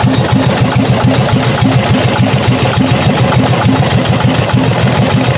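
Small river boat's engine running steadily and loud from on board, with an even, rapid pulse.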